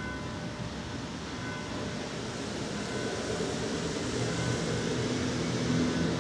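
Road traffic: a motor vehicle's engine running, its low hum growing louder in the second half.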